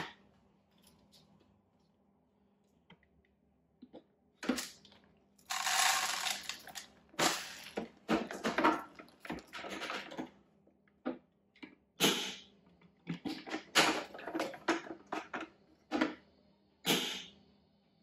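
Shark upright vacuum's clear plastic dust canister being emptied into a kitchen bin: a run of plastic clicks, knocks and rattles as it is opened and tapped, with a longer rush of dust and crumbs sliding out about five and a half seconds in.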